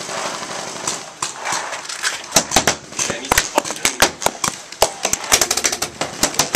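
Paintball markers firing: sharp pops, some single and some in quick strings, starting a little over two seconds in and thickest near the end.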